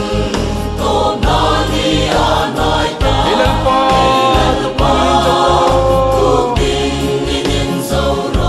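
Mixed church choir of women's and men's voices singing a hymn in parts, with notes held for a second or two near the middle.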